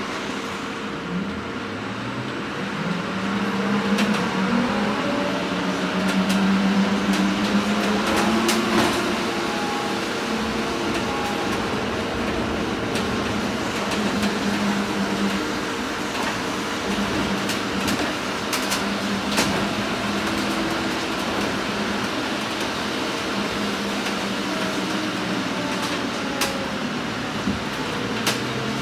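Cabin noise of an Irizar ie bus 12 battery-electric bus under way: a steady hum and road noise, with the drive motor's whine rising in pitch as it speeds up over the first several seconds and falling as it slows near the end. Occasional short rattles are heard.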